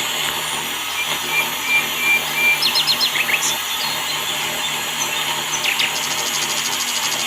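Birds chirping in short quick series of notes, over a steady whirring background noise and a low hum.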